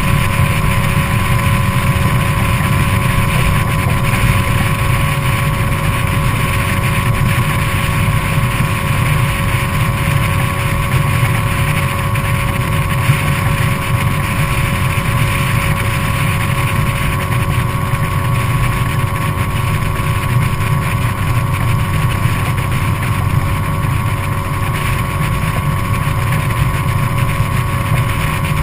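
Evinrude 50 hp E-TEC two-stroke outboard motor running steadily under way, with a constant engine whine over a low rumble.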